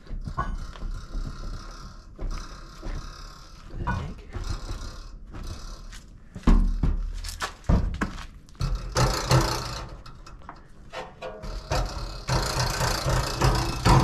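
Scattered knocks and rattles, with one heavy low thump about six and a half seconds in and busier clattering in the last few seconds.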